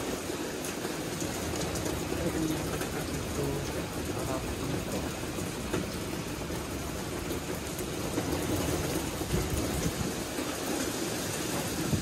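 Typhoon rain falling steadily, an even continuous hiss.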